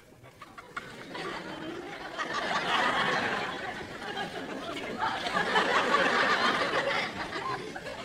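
Studio audience laughing, swelling up about a second in, cresting twice, and dying away near the end.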